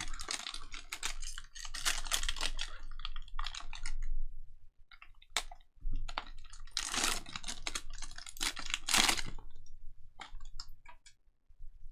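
Trading cards and their packing being handled by hand: quick clicking and rustling in two spells, one in the first few seconds and another from about six to nine and a half seconds in.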